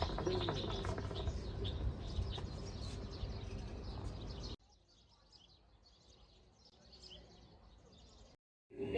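Small birds chirping over a steady low hum. About halfway through the sound cuts to a much quieter stretch with only faint chirping, followed by a brief dropout near the end.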